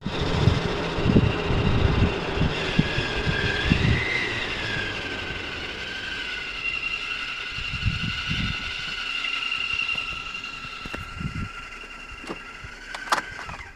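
High-pitched whine from a 2013 Jeep Wrangler JK Unlimited: two steady tones that waver in the first few seconds, hold, then fall in pitch and stop just before the end. Some low thumps come in the first few seconds and again around the middle. It is an unfamiliar noise of unknown cause.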